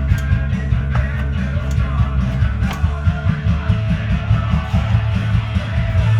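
Punk rock song with electric guitars, drums and singing, playing loud and steady.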